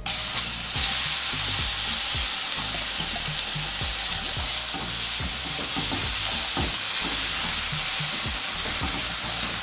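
Wet green seasoning paste dropped into hot olive oil and curry powder in a non-stick skillet, setting off a sudden, steady sizzle, then stirred around the pan with a spatula.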